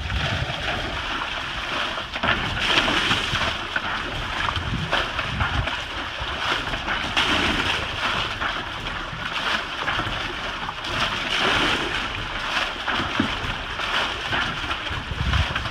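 Water splashing and sloshing in repeated surges as buckets are scooped from a swamped boat's flooded deck and emptied over the side, with wind gusting on the microphone.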